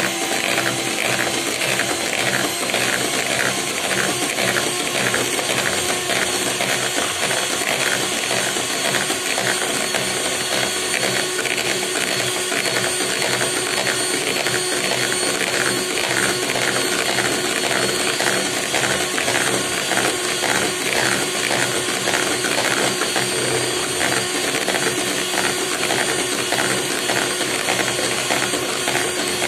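Electric hand mixer running at its lowest speed, its two wire beaters whipping cream in a bowl: a steady motor whir with a fast, even rattle of the beaters.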